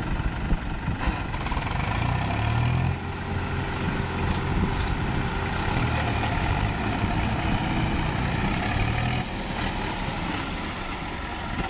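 Swaraj tractor diesel engine running hard under load as it pulls a sand-loaded trolley stuck in mud. Its pitch rises about two seconds in, holds steady, and eases off near the end.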